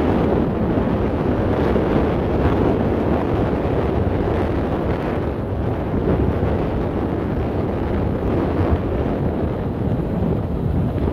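Wind buffeting the microphone, over the steady low running of the International 7600 dump truck's diesel engine.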